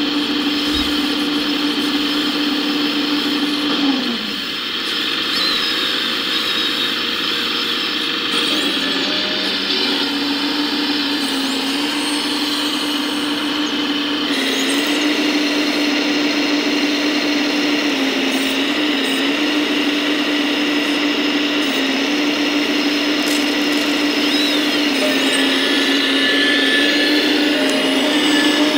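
Electric drive motors of a Volvo-liveried scale RC crawler excavator whining steadily as it works, with a high ringing overtone. The pitch dips briefly several times as the motors take load.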